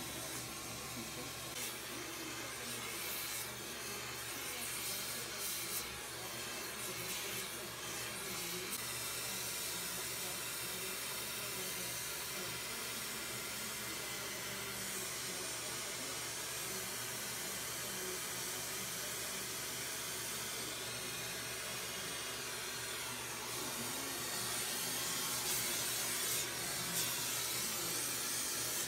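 Glassworking torch flame hissing steadily while heating glass on a glass lathe, a little louder near the end.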